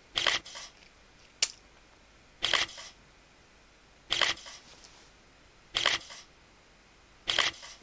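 Camera shutter clicking five times at an even pace, about a second and a half apart, with one shorter, sharper tick about a second and a half in: still photos being taken one after another.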